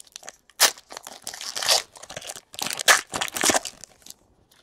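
Foil wrapper of a Panini Elite Extra Edition baseball card pack being torn open and pulled apart, a run of sharp crinkling and crackling that stops shortly before the end.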